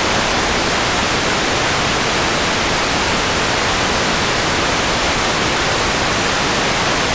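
Steady, loud hiss of television static, the white noise of a channel with no signal.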